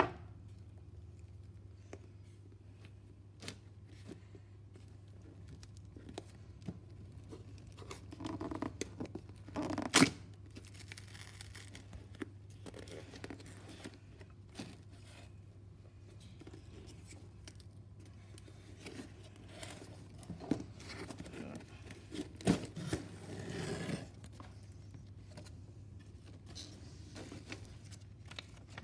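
Cardboard shipping box being torn open by hand: tearing and scraping of cardboard in short spells, with scattered clicks and one sharp snap about ten seconds in.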